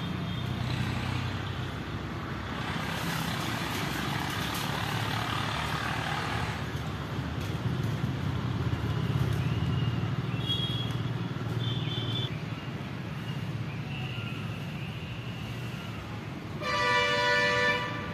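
Steady road traffic noise, with a vehicle horn honking once for about a second near the end.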